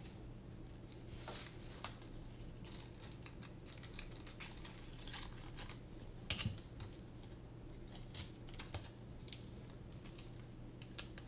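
Small clicks, taps and rustles of hands handling and fitting drone racing frame parts, with one sharper knock about six seconds in, over a faint steady low hum.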